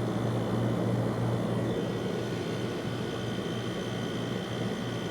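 1991 Friedrich Quietmaster 12,000 BTU window air conditioner running: a steady fan rush over a constant low compressor hum.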